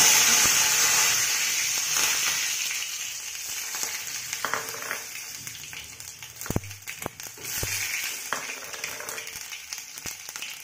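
Tempering spices (cumin and mustard seeds with green chilli) sizzling in hot oil in a kadai: a loud hiss at the start that slowly dies down, with scattered pops and clicks.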